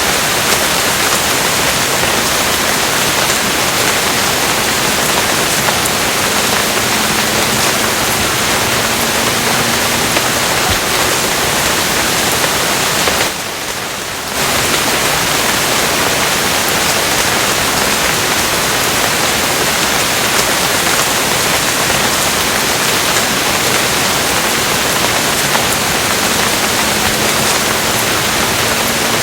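Steady heavy rain, a dense even hiss, that briefly drops in level for about a second near the middle.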